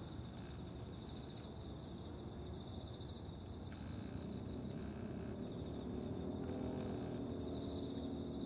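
Insects trilling outdoors: a steady high-pitched tone and pulsing higher trills that come and go, over a low background rumble. About halfway through, a low droning hum joins in and continues to the end.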